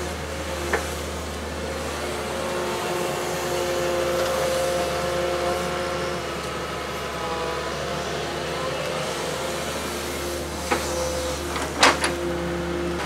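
Wheeled excavator's diesel engine running under load as the boom and bucket work the mud, the engine note swelling a few seconds in. A few sharp knocks from the digging gear, the loudest near the end.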